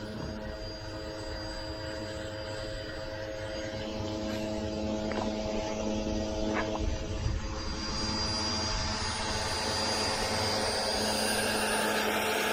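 An electric pressure washer's motor hums steadily under a hiss of spraying water. The hiss grows louder after about eight seconds.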